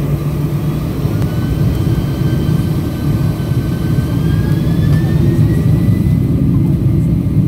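Airliner jet engines heard from inside the cabin: a loud, steady low rumble, with a thin whine that rises slowly in pitch from about a second in as the thrust builds.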